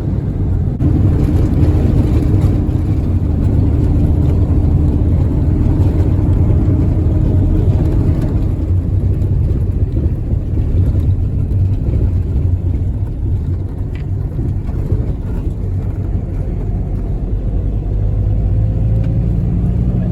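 Minibus driving along a road, heard from inside the cabin: a steady low rumble of engine and road noise.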